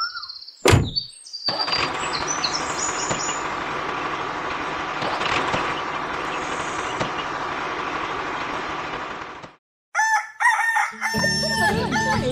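Chickens clucking and a rooster crowing in short, bending calls toward the end, after several seconds of steady noise; a single sharp knock comes under a second in. Music comes in under the fowl calls near the end.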